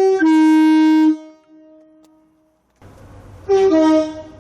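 Train's two-tone horn sounded twice, each time a high note dropping to a lower one. The first low note is held for about a second; after a pause a second, shorter high-low blast comes about three and a half seconds in.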